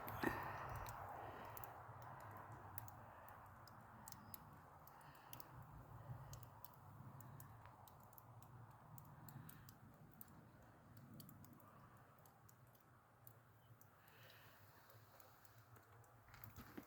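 Near silence: a faint background with scattered small clicks at irregular intervals.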